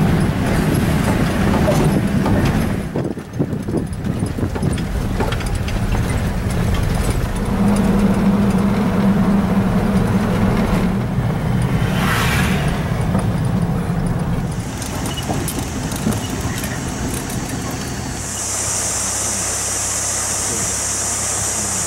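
Vehicle engine running and road noise while driving, a steady low hum throughout. A steady high buzz joins near the end.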